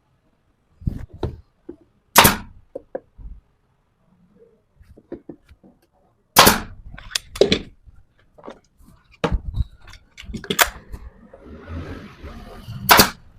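Irregular sharp knocks and bangs in a woodworking shop, with about six loud strokes and several lighter taps between them.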